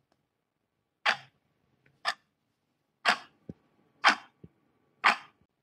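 Countdown-timer sound effect: five sharp clicks about a second apart, each with a short fading tail, and a faint low thud after the third and fourth.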